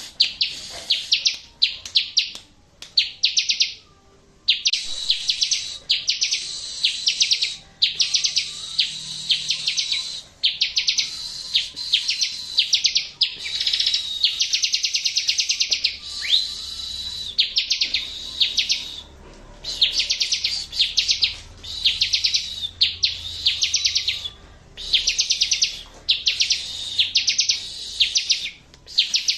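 Bar-winged prinia (ciblek) song played as a masteran training recording: fast, high trilled phrases about a second long, repeated over and over with short gaps.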